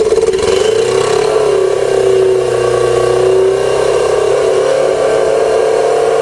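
Motorcycle inline-four engine in a home-built dune buggy running steadily just after a cold start, its pitch wavering slightly. It is missing and running on only three cylinders, which the owner suspects is caused by an oily spark plug.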